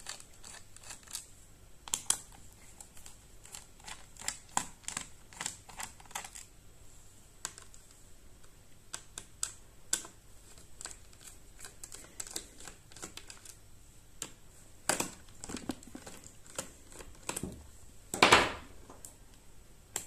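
Small screwdriver turning the Phillips screws of a Dell Latitude 7290 laptop's bottom cover: a run of light, irregular clicks and ticks, dense at first and sparser later, with a louder brief scrape near the end.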